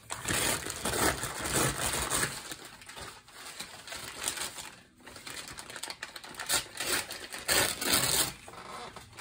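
Brown kraft packing paper being crumpled and crinkled by hand, an irregular crackling that comes in bursts. It is loudest in the first two seconds and again around seven to eight seconds in, quieter in between.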